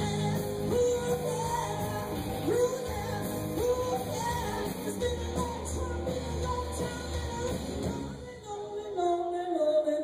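Live rock band playing, with electric guitars, bass and drums, and a woman singing. About eight seconds in the band drops out, leaving mostly her voice.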